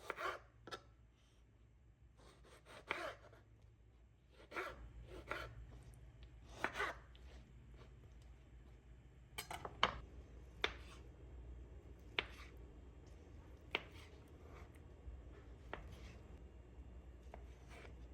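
Kitchen food-preparation sounds: light knocks and scraping strokes, irregular and spaced a second or two apart. In the first half the strokes are longer and scraping; in the second half they are short, sharp clicks.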